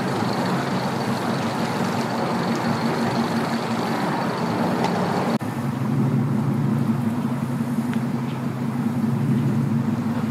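Mercury 50 outboard motor running as a small aluminium fishing boat motors off. After an abrupt cut about five seconds in, a vehicle engine idling with a steady low drone.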